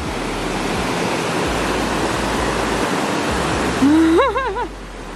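Waterfall rushing steadily into a creek swimming hole. Near the end, a short wavering call sounds briefly over the water.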